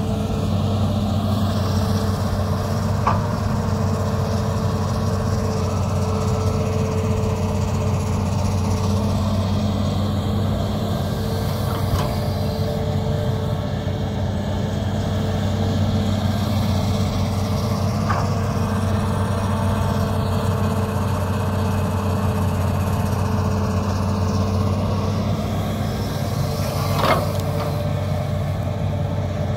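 Hitachi hydraulic excavator's diesel engine running steadily as it digs and dumps mud, with four brief knocks spread through the sound, the strongest near the end.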